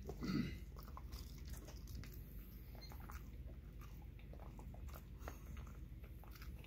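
A Pembroke Welsh corgi chewing a dried silkie chicken (ogolgye) treat: faint, irregular small crunches and clicks of teeth on the chew. A slightly louder short sound comes right at the start.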